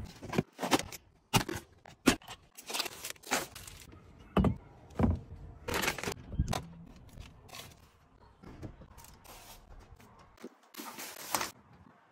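Irregular knocks, clunks and rustling from a car's interior being cleared out by hand: the door handled, a fabric blanket pulled off the seat and loose items moved about.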